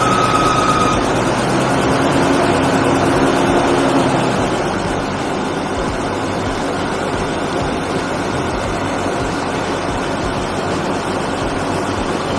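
Mercedes-Benz W123 280E's M110 straight-six engine idling steadily just after starting. It is being run for a few minutes to circulate the fresh oil after an oil and filter change. It settles a little quieter about four seconds in.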